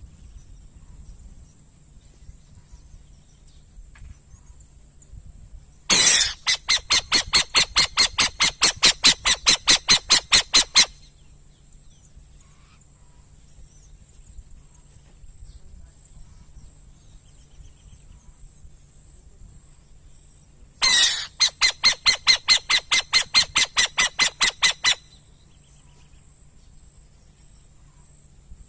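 Owl calling in two bouts of rapid, evenly repeated whistled notes, about four or five a second. The first bout starts about six seconds in and lasts about five seconds; the second starts about twenty-one seconds in and lasts about four. Each bout opens with a louder note.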